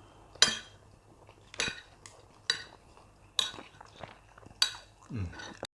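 Cutlery scraping and clinking against a plate as the last of the rice is scraped up: five sharp, ringing strokes about a second apart. Near the end comes a short low sound that falls in pitch.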